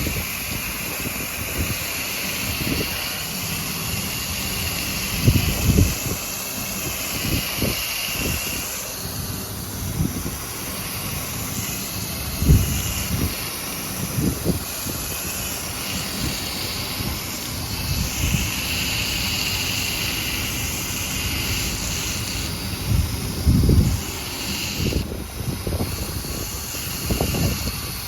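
Spray hissing on and off as coil cleaner is sprayed onto a rooftop air-conditioning unit's condenser coil. Under it is a steady rushing noise, with wind buffeting the microphone in irregular low thumps.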